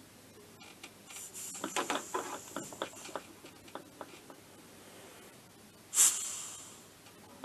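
Clicks and rattles of a hand-held leak-test pressure gauge and its hose being handled on an AM6 moped engine, then, about six seconds in, a sudden short hiss of air let out that fades over about a second.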